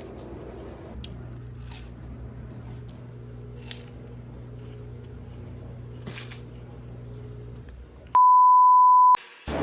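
A low steady hum with a few faint clicks, then near the end one loud, steady, high electronic beep about a second long, cut off sharply, with music starting right after it.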